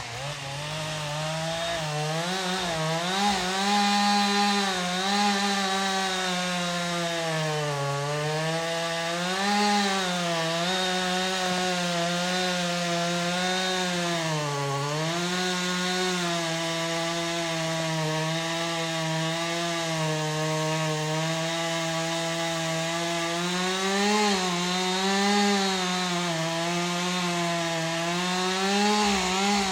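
Two-stroke chainsaw revving up and cutting through a tree trunk, running steadily at high speed. Its pitch sags and recovers several times as the chain loads up in the wood.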